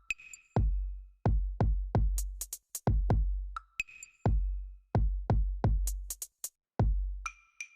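Electronic music with a drum-machine beat: deep bass-drum hits with long, low booming tails, sharp high ticks, and a short ringing bell-like tone twice.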